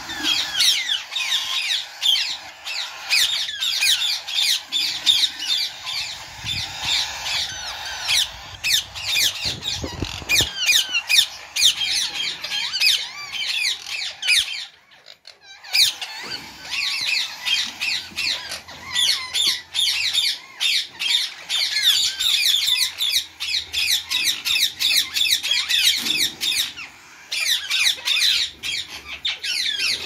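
A flock of caged parrots chattering and squawking, with many quick overlapping chirps. The calls break off briefly about halfway, then resume.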